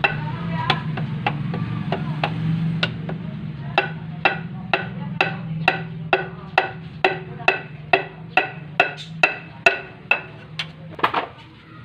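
Wooden stick tapping the crown of a piston in a Mitsubishi 4G18 engine, driving the piston and its rings out of a ring compressor and down into the cylinder bore. A long run of short, sharp wooden knocks, about two a second at first and quickening to nearly three a second, over a steady low hum.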